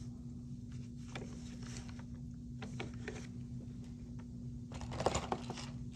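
Faint clicks and knocks of a plastic dental typodont being taken off its metal mount and handled, with a short cluster of sharper clicks about five seconds in, over a steady low hum.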